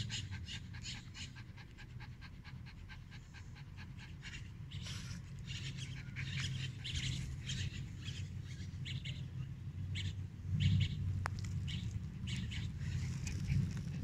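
A dog panting: a long run of quick, short breaths over a low rumble, with a louder low swell about three quarters of the way through.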